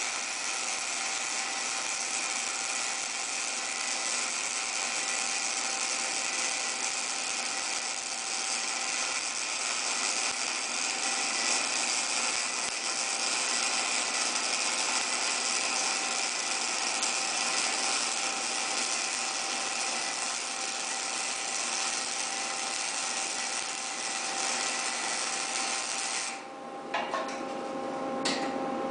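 Lincoln MIG-Pak 10 wire-feed welder's arc crackling and buzzing steadily while laying a long bead on a steel beam. The arc stops about 26 seconds in, and a couple of short crackles follow near the end.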